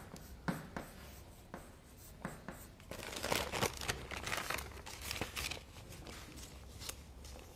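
Chalk writing on a chalkboard: short taps and scratching strokes, busiest from about three to five and a half seconds in.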